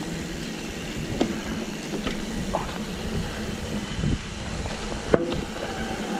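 Mountain bike being ridden over a trail: a steady rush of tyre and riding noise, broken by scattered knocks and rattles from the bike over rough ground, the sharpest a little after five seconds in.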